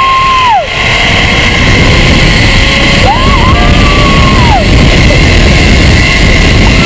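Zipline ride heard from a rider-mounted camera: loud wind rush on the microphone and the trolley's pulley running along the steel cable with a faint, slowly rising whine. The rider's long held yell cuts off about half a second in, and another yell rises and falls about three seconds in.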